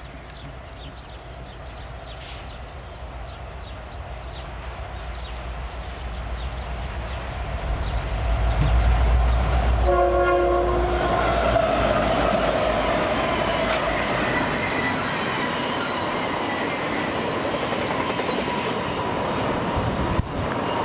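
Santa Fe diesel locomotives approaching, their engine rumble growing steadily louder. About halfway there is a short blast of a multi-tone air horn. After that the train's cars roll past with loud wheel-on-rail noise and a steady metallic whine.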